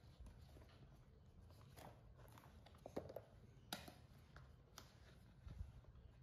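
Near silence: quiet room tone with a low hum and a few faint clicks and rustles a little past the middle.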